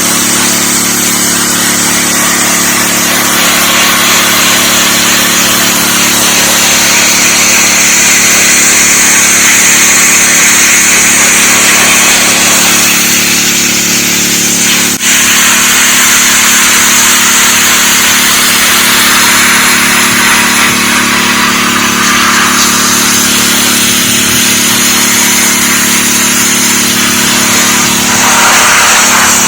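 DeWalt 3600 psi gas pressure washer running steadily under load, its engine hum under the loud hiss of the high-pressure water jet spraying. The sound dips for an instant about halfway through.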